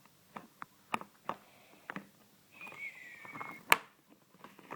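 Small plastic toy pieces being handled and pushed into place: scattered light clicks and taps, a thin high squeak lasting about a second, then one sharp, louder click.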